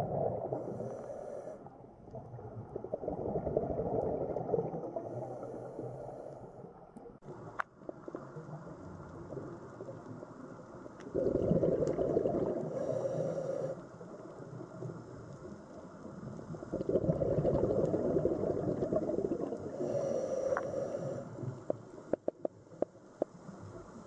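Scuba diver breathing through a regulator underwater: exhaled bubbles rumble out in bursts of a few seconds each, with a fainter hiss of inhalation between them. A few sharp clicks near the end.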